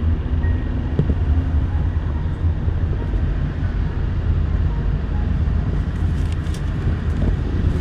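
Steady low rumble of a car driving, heard from inside the cabin: road and engine noise with no change in pace.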